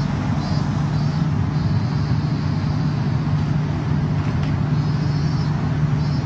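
Steady low rumble with an even hiss of outdoor background noise, unchanging throughout.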